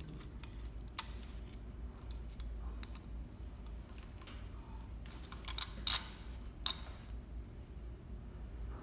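Small clicks and taps of hands working thread through the guides of a Juki MO-6700DA serger during threading, with a sharp click about a second in and a short cluster of clicks past the middle.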